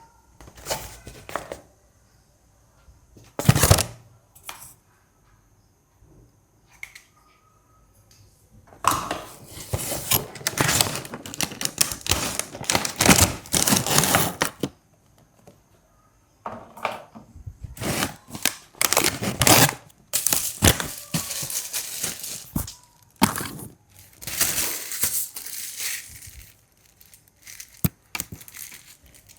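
Packaging being opened and handled: paper and plastic rustling, crinkling and tearing in long irregular bursts, with a few short sharp knocks.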